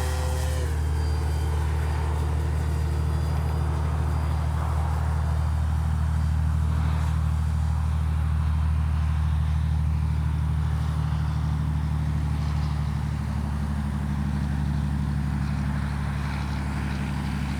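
Electric RC airplane (Spektrum Avian 4250-800Kv brushless outrunner turning a 13x6.5 propeller) in flight, its whine dropping in pitch about half a second in as the throttle is eased. Under it runs a steady low hum.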